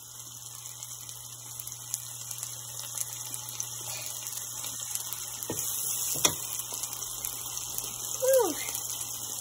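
Fish and onion-tomato masala sizzling in hot oil in a flat pan, a steady frying hiss that slowly grows louder. Two short clicks come in the middle, and a brief falling squeak near the end.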